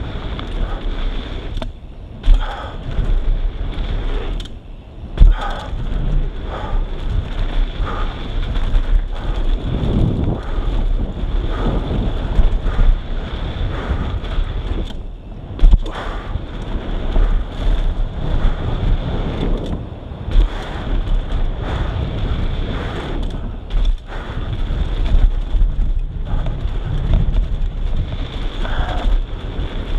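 Mountain bike running fast down a dirt trail: wind rushing over the microphone with tyre roll and bike rattle underneath. A few sharp knocks from bumps or landings come about 2, 5 and 16 seconds in.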